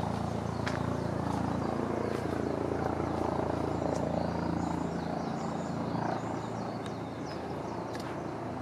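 A steady low hum, with high bird chirps for a few seconds in the middle and a few faint clicks.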